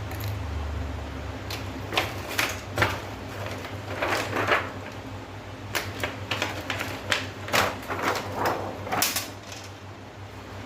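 A string of irregular clicks and light knocks as hands handle the parts inside an opened LED TV, its plastic and metal pieces tapping and clicking together.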